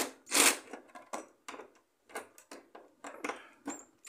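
Irregular short knocks, clicks and scrapes as a cordless drill's bit is worked onto a screw in a minisplit indoor unit's plastic casing. Two louder knocks come in the first half second, then weaker ones spread through the rest.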